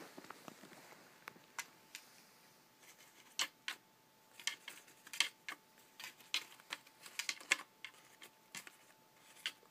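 Irregular light clicks and taps, a few sharper than the rest, from a cat fiddling at a puzzle-box cat toy with flap-covered holes.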